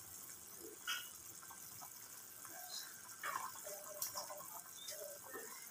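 Pot of instant noodle soup boiling on an induction cooker: faint, steady bubbling with scattered small pops.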